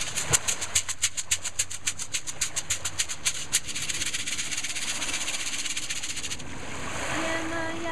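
Shekere, a dried gourd wrapped in a net of beads, shaken in a fast, even rhythm of sharp bead rattles. About three and a half seconds in it turns into a denser, continuous swishing rattle, which stops about six and a half seconds in. A held pitched tone begins near the end.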